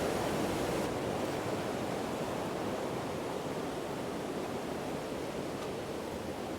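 Steady rushing of a river's waterfalls and rapids: an even, continuous noise that grows slightly fainter.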